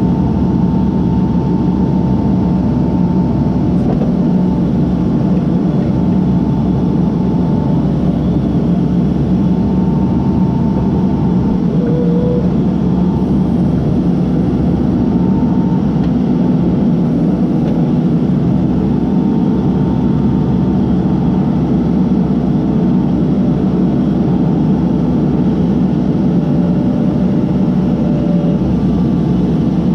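Case backhoe's diesel engine running steadily at working speed, with a thin whine that comes and goes over it.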